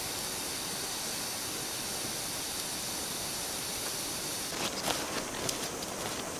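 Small twig campfire burning with a steady hiss, with a few faint crackles about five seconds in.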